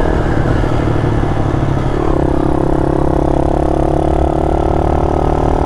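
Small mini-motorcycle engine running steadily while riding along, its pitch shifting about two seconds in.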